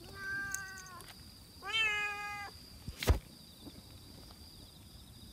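Black-and-white cat meowing twice, each meow under a second long and about a second apart. A sharp knock follows about three seconds in.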